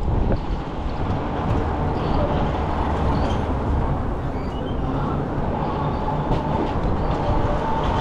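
Steady low rumble of passing vehicles and road noise, with a few faint high squeaks a few seconds in and a faint whine near the end.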